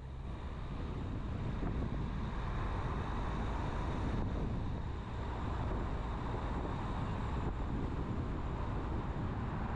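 Steady wind buffeting a moving microphone over a low rumble of road noise.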